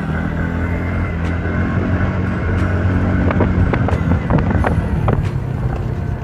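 Scooter engine running steadily under way, with music underneath and a few short knocks partway through.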